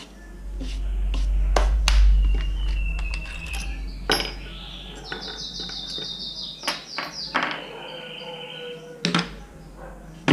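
Sharp wooden knocks and clicks as a pine box, a glue bottle and bar clamps are picked up and set down on a wooden workbench, over a low rumble that fades out about seven seconds in.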